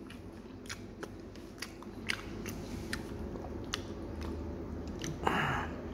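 A person chewing food close to the microphone, with scattered crisp clicks of crunching, and a short louder noise about five seconds in.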